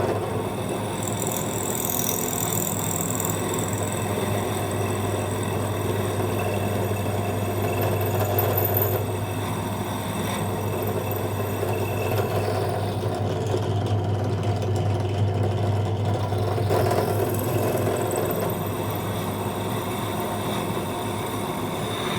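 ZJ4113 bench drill press running with a steady motor hum while its bit is run through the freshly drilled hole in a bicycle pedal lever to clear out plastic.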